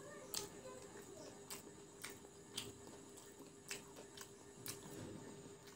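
Quiet eating sounds of fried chicken pakora: sharp, irregular crisp clicks of chewing and fingers picking at the crunchy fritters, about one or two a second, over a faint steady hum.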